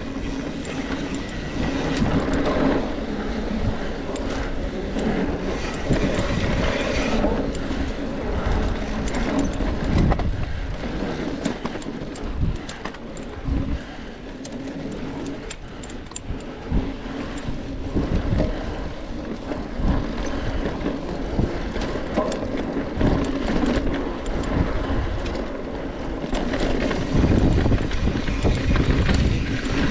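Off-road bicycle ridden at race pace over rough dirt trail: steady wind rush on the microphone, with the bike clattering and rattling over bumps.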